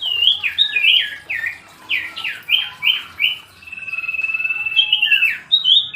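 Common iora (cipoh) singing a varied song: a quick run of about nine sharp whistled notes that sweep down and up, then one long steady whistle held for over a second, then a few more quick notes near the end.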